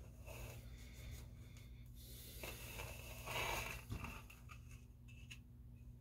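Faint handling noise of hands working a thin plastic rod into a plastic dome base: soft rubbing and scraping, loudest about three and a half seconds in, over a steady low hum.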